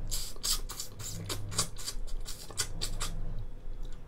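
Eating boiled lobster straight from the shell held at the mouth: a quick run of about a dozen sharp, crackly mouth-and-shell noises that stop after about three seconds.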